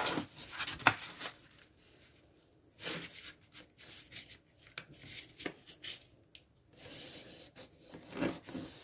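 Sheets of 65 lb cardstock rustling and sliding against a table as they are handled, with hands rubbing a fold flat in irregular scratchy strokes and a brief quiet pause about two seconds in.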